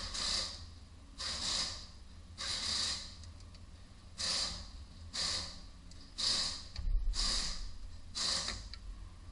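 A person breathing hard close to the microphone: a short hissing breath about once a second, over a low steady rumble, with a dull bump about seven seconds in.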